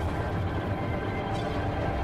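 Dark ambient film underscore: several sustained held tones over a steady low rumble.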